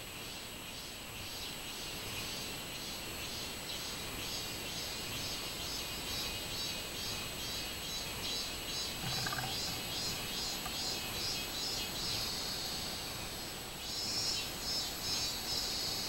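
Robust cicada (minmin-zemi, Hyalessa maculaticollis) calling: a high, pulsing "meen-meen-meen" at about two pulses a second that grows gradually louder, breaking into a longer, drawn-out phrase near the end.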